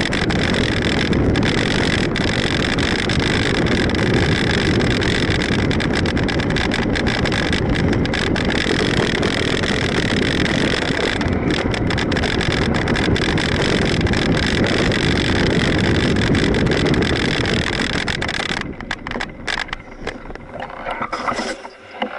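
Steady loud rushing of wind and tyre rumble picked up by a handlebar-mounted camera as a mountain bike rolls down a dirt trail. About eighteen seconds in it drops off sharply as the bike slows to a stop, leaving scattered quieter noises.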